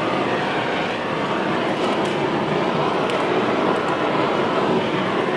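Handheld propane torch burning with a steady rushing hiss as its flame is played over a skinned carcass to singe off stray hairs, with a few faint crackles.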